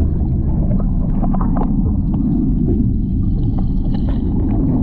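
Water in a boat's live bait well heard through a submerged camera: a loud, steady, muffled low rumble with gurgling and scattered small clicks.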